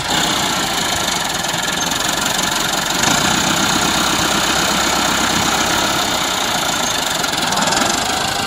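Massey Ferguson 385 tractor's diesel engine running steadily under load while its front blade pushes soil.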